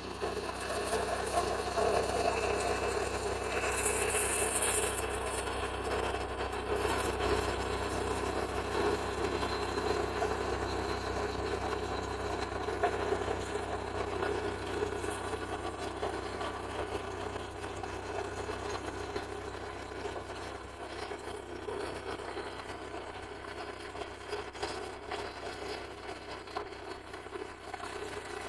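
Portable sawmill's engine running steadily, a little louder in the first half and easing slightly later on.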